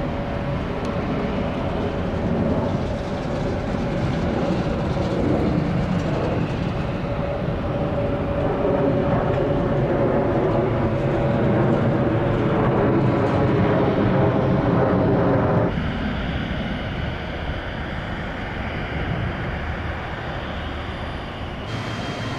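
Jet airliner engines running loud and steady, with a held tone in the roar. About two-thirds of the way in the sound cuts abruptly to a quieter jet engine whine with high steady tones.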